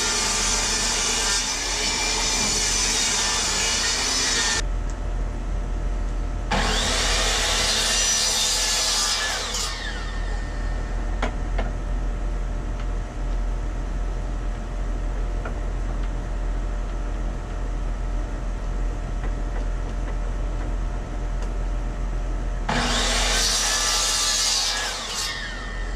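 Portable table saw ripping a 2x4 lengthwise. The saw motor runs steadily throughout, and loud, rough cutting noise from the blade in the wood comes three times: for about four seconds at the start, again a few seconds later, and near the end.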